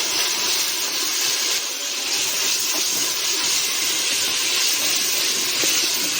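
Onion-and-tomato masala sizzling in ghee in a cooking pot, a steady hiss of frying and steam just after a little water has gone in.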